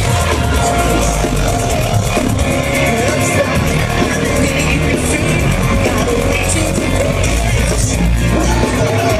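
A rock band playing loud live music, guitar over bass and drums, heard from within the audience. A heavy low end kicks in at the very start and holds steady.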